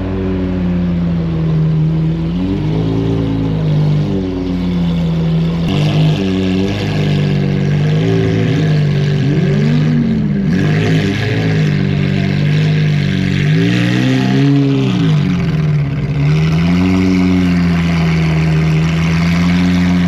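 Car engine running under way, its pitch rising and falling as the throttle is opened and eased off, with a rushing hiss that grows stronger partway through.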